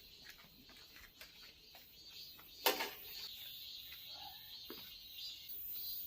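Vegetable picking in a garden: faint rustling and light clicks, with one sharp snap a little under three seconds in, over a steady high hiss.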